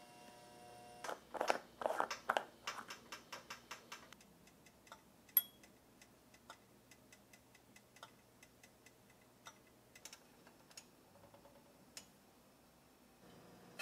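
Small sharp clicks and ticks at an electric hot plate warming glass beakers of melted candle material. A quick run of clicks comes about a second in, then thins to occasional single ticks.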